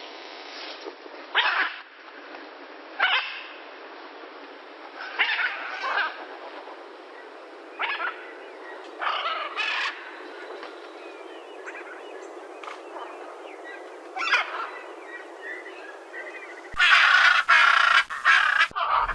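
Macaws giving loud, harsh squawks, one at a time every second or few seconds. Near the end a louder, denser run of squawking starts.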